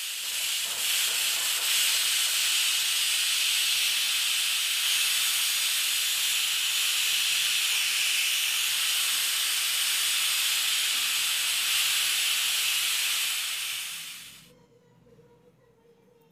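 Pressure cooker venting steam in a loud, steady hiss that cuts off sharply near the end.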